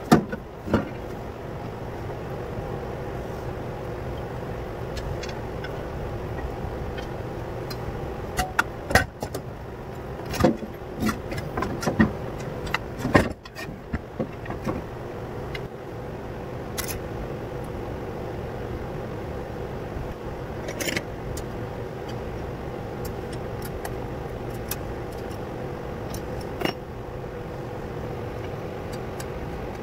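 Metal clinks and knocks from steel brackets, bolts and a ratchet being handled while a conveyor motor is bolted onto its mount, over a steady hum. Most of the knocks are bunched between about eight and fourteen seconds in.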